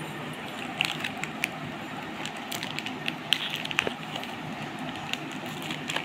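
Plastic biscuit wrapper crinkling and crackling as it is handled, in scattered sharp clicks over a steady background hiss.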